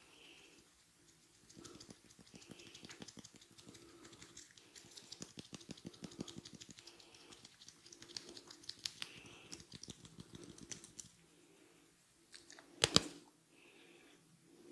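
Head massage: a dense run of fast, fine crackling clicks from fingers working through the hair and scalp, then a single loud sharp crack near the end.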